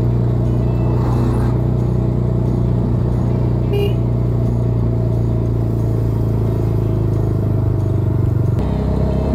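Car engine running steadily on the move, heard from inside the car as a continuous low drone with road noise. The engine note changes near the end.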